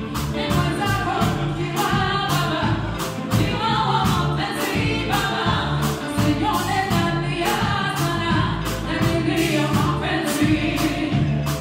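Live band performing a song, several voices singing together over a steady drum beat.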